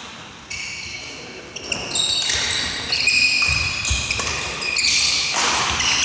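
Badminton doubles rally on a wooden gym court: sneakers squeaking sharply on the floor, racket strikes on the shuttlecock and footfalls thudding. It starts quietly and gets busy about two seconds in, with a hall echo.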